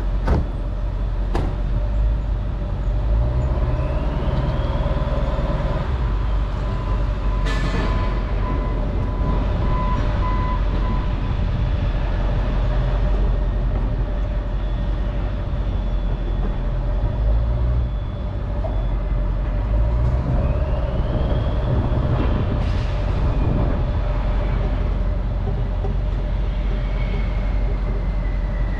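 A steady engine rumble with a few faint steady tones above it, and a couple of sharp clicks.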